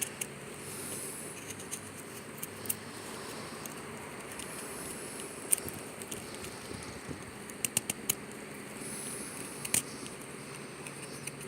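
Pocket-knife blade of a Victorinox Rangerwood 55 carving feather shavings into a wooden stick: soft scraping and cutting with scattered sharp clicks, a quick cluster of them about eight seconds in.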